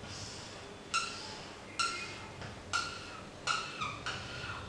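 Felt-tip whiteboard marker squeaking against the board as a wavy line is drawn: about six short, high squeaks, roughly one a second, coming closer together near the end.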